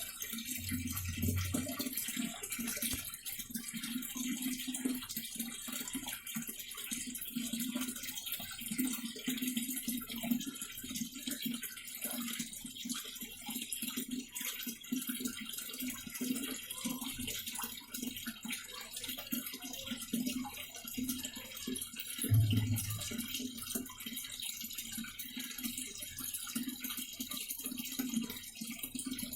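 Washing machine filling with water: a steady rush of water pouring into the tub, with a brief low hum about a second in and again about 22 seconds in.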